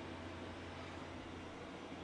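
Faint steady hiss with a low hum underneath, no distinct knocks or handling sounds: room tone.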